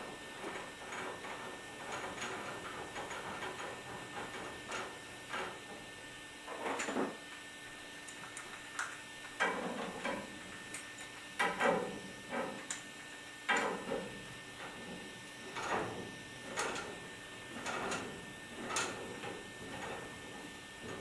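Irregular scrapes and knocks of hand work with tools, one every second or two, growing stronger from about six seconds in, over a steady hum.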